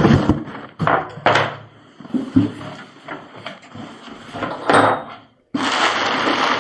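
Cardboard parcel being opened: a run of irregular knocks, scrapes and rustles. About five and a half seconds in, a steady rushing noise starts abruptly.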